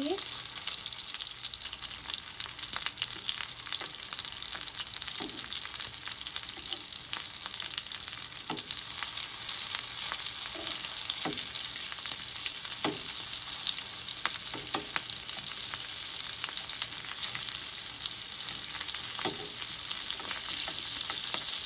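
Masala-stuffed green chillies sizzling steadily in mustard oil in a nonstick frying pan, the hiss growing a little louder about halfway through. A few sharp clicks and taps of metal tongs against the pan come through as the chillies are turned.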